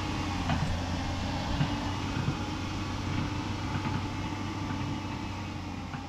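A steady low mechanical hum over even background noise, fading slightly near the end.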